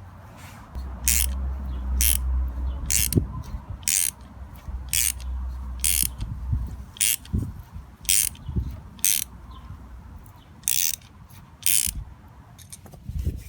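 Ratchet wrench clicking in short bursts about once a second as it turns a thread-repair nut down a damaged shock stud, recutting the threads. A low rumble runs under the first half.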